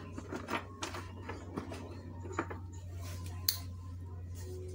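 Scattered light clicks and taps from a TV chassis circuit board and small tools being handled on the workbench, the sharpest about three and a half seconds in, over a steady low hum.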